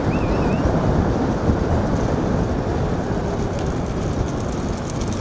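Steady rumbling wind buffeting the microphone, mixed with road and engine noise from a vehicle moving at speed.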